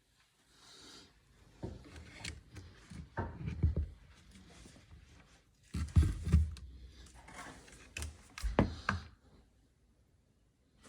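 Irregular knocks, clunks and scrapes of dishwasher parts being handled, with louder thumps about two seconds in, around three and a half, at six and near eight and a half seconds.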